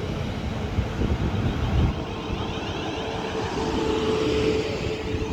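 South Western Railway Class 450 Desiro electric multiple unit at the platform: a steady electric hum over a low rumble, growing a little stronger in the second half.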